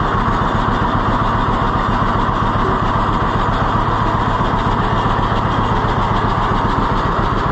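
John Deere B two-cylinder tractor engine running steadily with its fuel shut off, burning the last of the gas in its freshly rebuilt carburetor before it dies.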